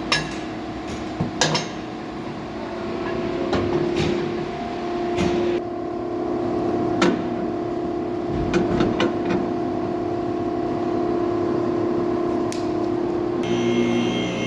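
A steady machine hum holding one pitch, with scattered sharp metallic clinks and knocks over it; the hum changes its tone near the end.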